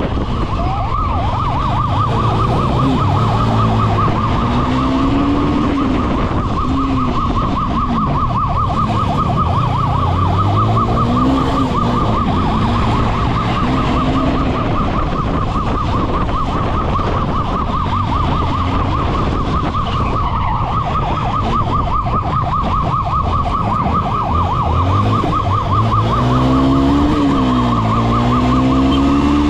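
Police motorcycle siren sounding a fast warble throughout, over the motorcycle's engine revving up and down as it accelerates and slows, with steady wind noise.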